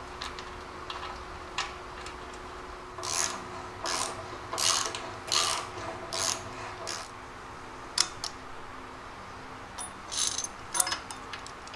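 Hand ratchet wrench clicking in short runs as bolts on a front sway bar's bushing bracket and end link are tightened. About six quick bursts come in the middle and another cluster near the end, over a steady low hum.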